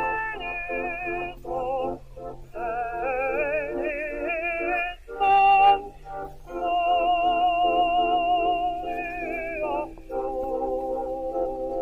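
Background music: a long, wavering melody line held over quickly repeated lower notes and a low sustained note.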